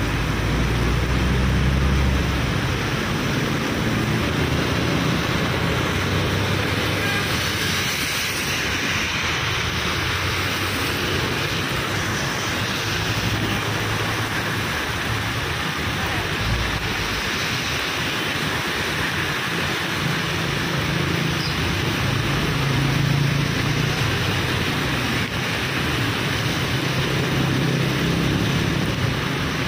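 Empty cement tank wagons of a freight train rolling slowly past in rain: a steady rush of rain and wheel noise, with a low hum that comes and goes.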